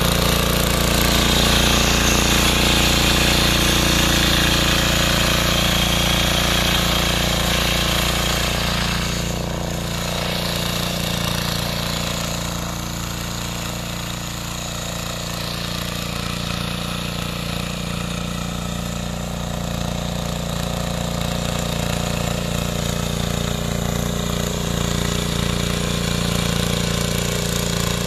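Engine of a 7 hp mini power tiller running under load as its rotary tines churn the soil, a steady, fast chatter. Loudest in the first few seconds, a little fainter from about ten seconds in.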